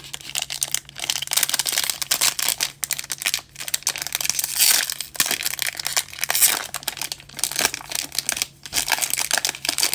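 A trading card pack's wrapper being torn open by hand and crinkled as it is pulled apart: a continuous run of crackles and rips, louder for a moment about halfway through.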